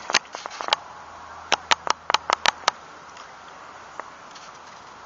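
A run of sharp, separate clicks from handling the spinning reel and rod, most of them about seven in quick succession in the middle, with one more faint click later on.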